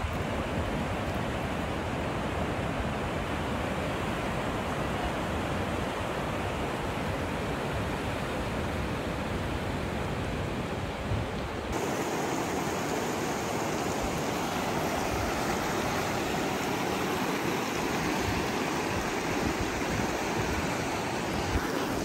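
Steady rush of a fast, shallow mountain river flowing over stones, changing in tone once about halfway through.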